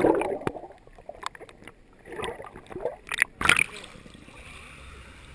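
Shallow seawater sloshing and splashing around a camera held at the surface and dipped under, with a muffled underwater rush at first, a few sharp splashes in the middle, then a steady low wash.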